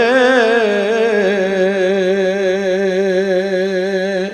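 A man singing a naat unaccompanied, drawing out the last vowel of a line: his voice wavers through quick ornaments for about the first second, then steps down onto one long steady note that breaks off at the very end.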